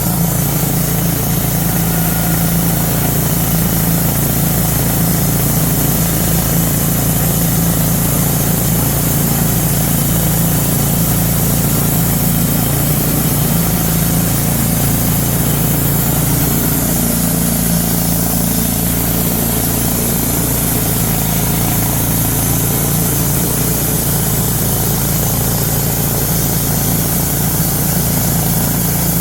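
Wood-Mizer LT-10 portable band sawmill's gasoline engine running at a steady speed, an even hum that does not change.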